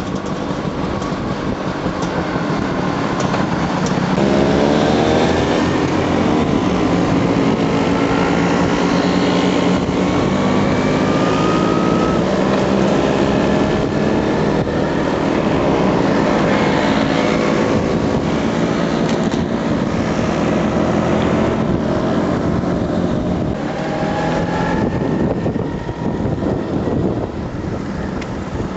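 Motor scooter engines running as a group rides along, the nearest engine's note rising several times as it speeds up.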